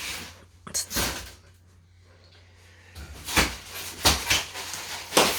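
Sharp knocks and bumps from handling the new dishwasher and its packaging: one knock about a second in, then several more close together in the last couple of seconds.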